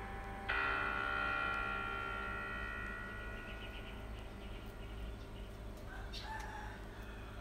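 Background music: a bell-like chord strikes about half a second in and slowly rings down, with a few brief higher sounds near the end.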